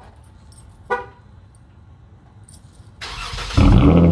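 A brief pitched chirp about a second in, then a 2019 Dodge Challenger GT's 3.6-litre V6 is cranked near the end and fires up with a loud burst into a steady idle. It runs through an SLP Loudmouth resonator exhaust with the mufflers deleted.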